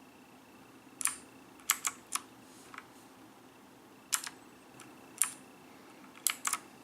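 Keys being pressed one at a time on a mechanical keyboard: about a dozen sharp, separate clicks in small clusters with pauses between, starting about a second in.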